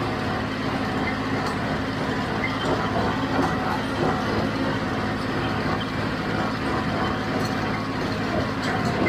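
John Deere 5055D tractor's diesel engine running steadily under load, with the John Deere 348 square baler clattering as it bales hay.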